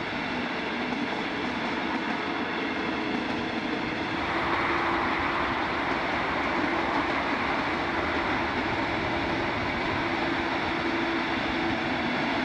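Electric locomotive and double-deck passenger coaches rolling past on the rails: a steady running noise with a steady hum, growing louder about four seconds in as the coaches pass close.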